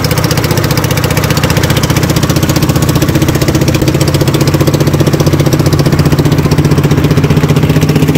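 Small boat engine running steadily and close, with a fast, even pulsing beat that holds constant.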